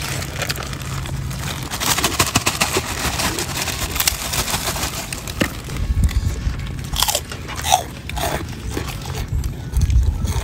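Crisp kerupuk crackers crunching as several people bite into them and break them apart, with chewing. The crackling is densest about two to four seconds in, with separate crunches after that.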